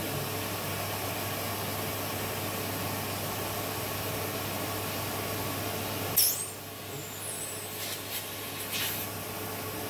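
Handheld electric heat gun blowing steadily over a plastic sheet being softened for vacuum forming, with a low hum beneath. About six seconds in it is switched off with a sharp click and the noise drops to a quieter steady hiss, followed by a few squeaks and rubs of gloved hands on the soft plastic.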